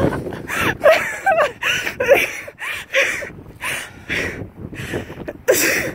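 A man laughing in short, breathy bursts.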